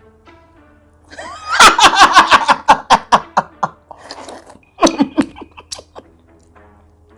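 A woman laughing hard and uncontrollably in rapid bursts, starting about a second in, then breaking into a second shorter fit of laughter, over faint background music.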